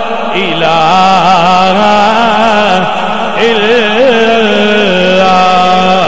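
A man singing a Punjabi devotional kalam through a microphone, drawing out a long melismatic line that waves up and down without breaking for words.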